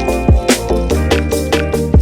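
Background music: an electronic track with a steady beat and a deep bass line.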